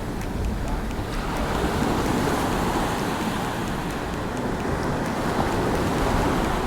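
Heavy surf breaking and washing up the beach in a strong norther, with wind rumbling on the microphone.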